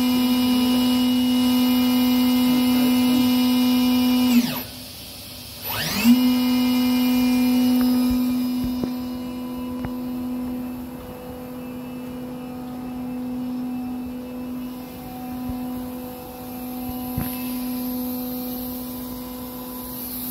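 Chiron FZ08W machining center's spindle running at 15,000 rpm with a steady whine. About four seconds in it spins down and stops. After a short pause it runs back up to speed and holds there, a little quieter later on.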